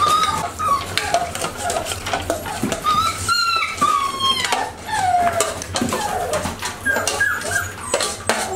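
Six-week-old XL American Bully puppies whining and whimpering in short, wavering high cries. A metal spoon clinks now and then against stainless-steel bowls.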